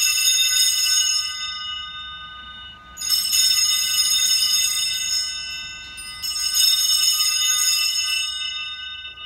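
Altar bells, a cluster of small Sanctus bells, rung three times about three seconds apart, each a bright jingling ring that fades away. This is the ringing at the elevation of the chalice after the consecration at Mass.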